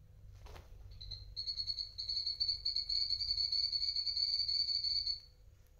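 A guinea pig chirping: one high, steady trill starting about a second in and lasting about four seconds. A short rustle comes just before it.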